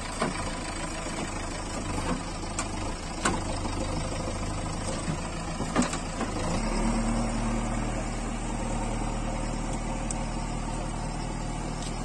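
JCB 3DX backhoe loader's diesel engine running while the backhoe arm works, with a few sharp knocks in the first half. About six and a half seconds in, the engine note changes to a steadier, deeper hum.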